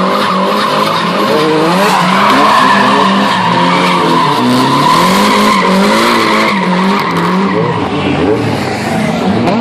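Drift cars sliding sideways in tandem: engines revving up and down again and again under on-off throttle, with tyres screeching steadily as they spin and smoke on the tarmac.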